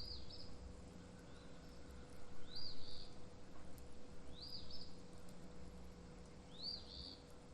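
A small bird calling, a short two-part arched chirp repeated four times about every two seconds, over a faint steady hum and low rumble.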